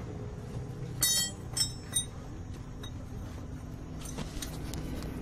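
Metal parts and tools clinking while the drive shaft's universal joint is refitted: three sharp clinks with a short metallic ring, about a second in and then about half a second apart, then a few lighter taps near the end.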